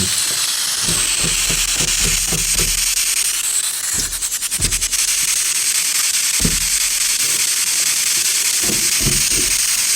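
Loud, steady static hiss with brief faint snatches of voices, as from a ghost-box radio sweeping for answers during a spirit-communication session. A quick run of clicks comes about four seconds in.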